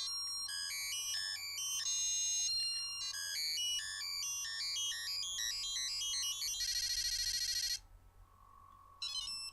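Power Rangers Lightspeed Rescue toy morpher playing its electronic sound effects: a fast run of beeping tones for about six seconds, then a steady buzzing tone for about a second, and a short burst of beeps near the end.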